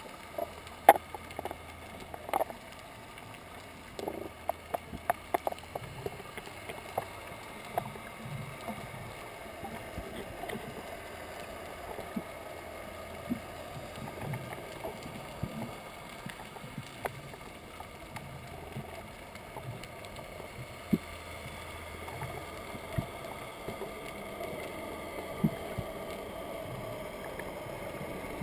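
Underwater ambience picked up by a camera held underwater: a steady muffled hiss with scattered sharp clicks and knocks, more frequent in the first several seconds.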